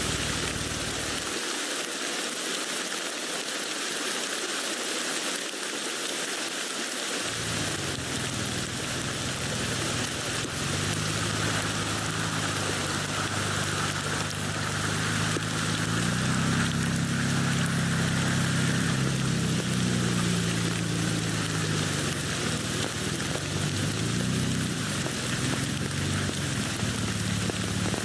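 Steady rain falling on a tent, an even patter throughout. About seven seconds in, a low rumble joins underneath and carries on, wavering.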